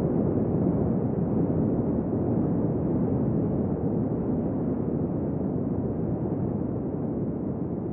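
Steady, muffled rumbling noise with no clear tone, fading slowly.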